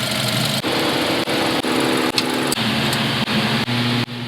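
A loud machine running with a high buzzing whine. Its pitch shifts in steps, with short breaks every half second or so.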